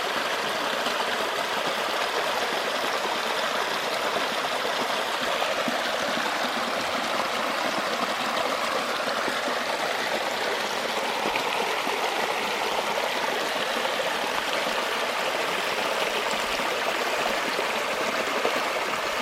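Waterfall, water falling and running over rock in a steady, unbroken rush.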